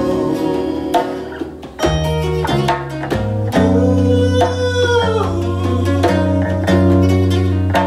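Live acoustic band: two acoustic guitars strummed over a djembe hand-drum beat, with a man singing a held, gliding line.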